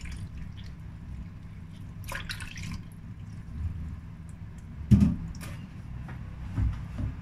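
Wet dripping and splashing of hands rubbing soaked dried shiitake mushrooms in a metal bowl of water, over a steady low hum. A dull thump about five seconds in is the loudest sound.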